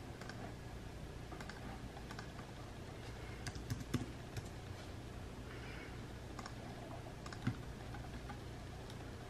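Typing on a computer keyboard: scattered key clicks, a few louder ones near the middle, over a low steady hum.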